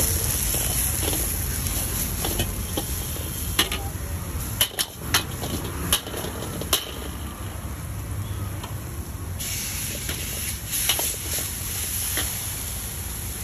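Steel ladle clanking and scraping against an iron wok while shredded cabbage and vegetables are stir-fried, over a steady hiss. A run of sharp metal knocks comes between about three and a half and seven seconds in.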